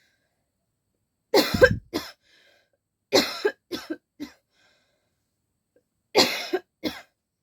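A person coughing in three short fits: two coughs about a second and a half in, three quick coughs around the middle, and two more near the end.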